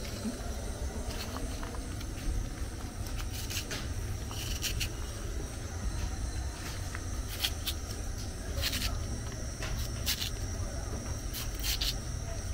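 Chef's knife slicing through fresh okra pods: a series of short, crisp cuts at irregular intervals, over a steady low rumble.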